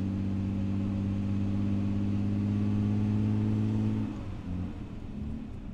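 A car engine running at a steady speed, then easing off about four seconds in, its note dropping and turning uneven.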